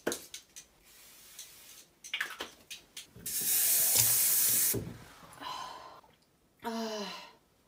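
Kitchen tap water running into a glass of ice cubes for about a second and a half, starting about three seconds in, after a few clinks. Near the end there is a brief voice-like sound that falls in pitch.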